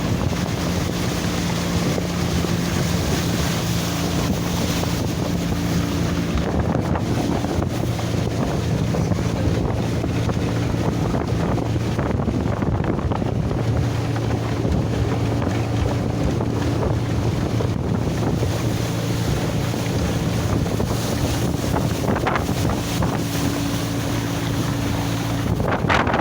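Boat motor running steadily under heavy wind noise on the microphone, with water sloshing; the engine's hum drops to a lower pitch about seven seconds in.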